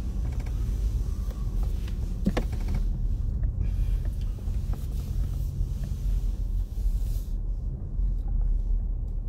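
Car cabin noise while driving slowly: a steady low engine and road rumble, with a higher hiss on top that drops away about seven seconds in.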